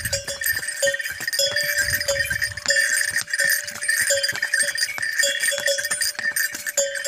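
Small harness bells on a walking riding horse ringing with its steps: an uneven, continual clanging of a few strikes a second.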